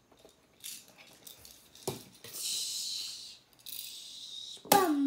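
Light clicks of plastic LEGO pieces being handled, then two hissing noises of about a second each, with a child's voice starting near the end.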